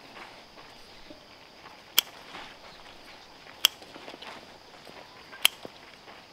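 Three sharp knocks, each well under a second apart from the next by about a second and a half to two seconds, over a faint steady high insect hum.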